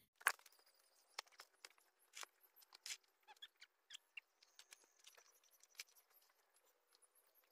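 Faint, irregular clicks and rustles of cows grazing, tearing at grass, against near silence.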